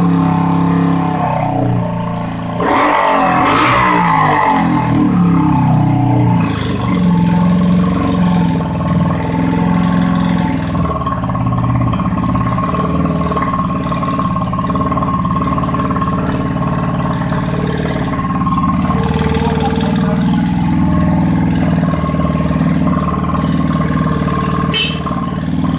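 A big-bike motorcycle engine running. It is revved up and down in the first several seconds, with a rough burst of noise about three seconds in, then runs more steadily at a low speed. There is a sharp click near the end.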